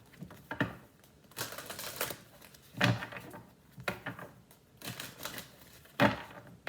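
Tarot cards handled on a table: a series of crisp slaps and clacks, roughly one a second, some coming in quick little clusters.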